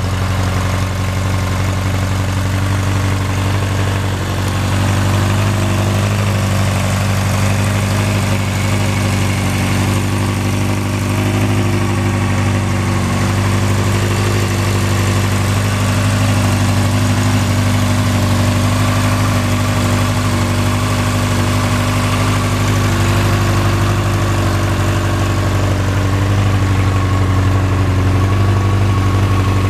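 Honda CB1100's air-cooled inline-four idling steadily through an aftermarket Moriwaki muffler.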